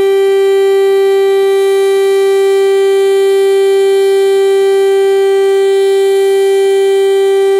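Federal Signal STL-10A outdoor warning siren sounding its full alert signal: one loud, steady tone that holds its pitch without rising or falling.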